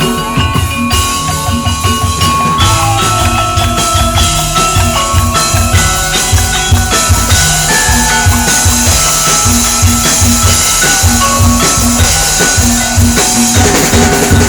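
Tongklek music: an East Javanese percussion ensemble playing a steady pitched melody over a loud, driving drum beat.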